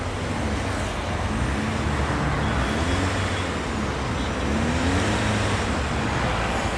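Mahindra Scorpio's mHawk four-cylinder diesel engine running steadily after a rev, smooth and free of knocking now that all 16 tappet bullets (hydraulic lifters) are new. A faint tone rises and falls a few times over the steady hum.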